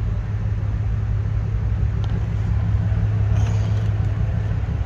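Steady low rumble of a running vehicle engine, with an even low hum and no change in speed.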